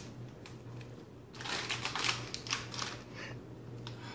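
Bag of cornstarch crinkling and crunching as it is handled and emptied into a bowl: a dense run of rapid, dry crackles lasting about two seconds, starting about a second in. A low steady hum runs underneath.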